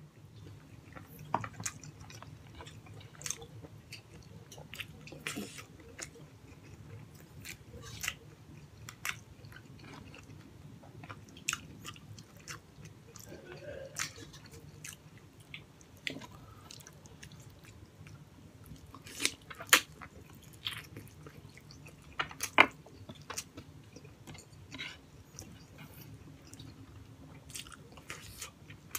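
Close-up chewing and wet mouth smacks of a man eating braised pork hock and rice by hand, with scattered sharp clicks and a few louder smacks about two-thirds of the way through. A faint steady hum lies underneath.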